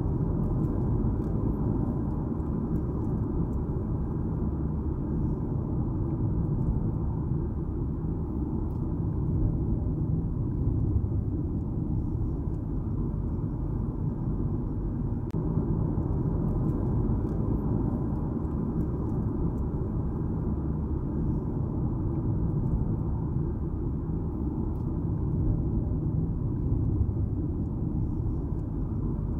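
A car driving at a steady pace: a constant low rumble of tyre and engine noise with a faint hum, unchanging throughout.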